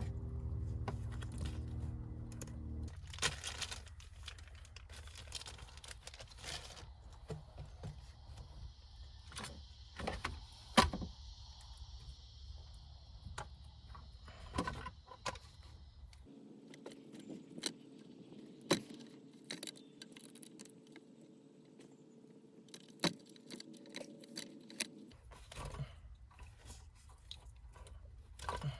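Scattered clicks, light metal jingling and rattles of small parts and wiring being handled, with a steady hum at times.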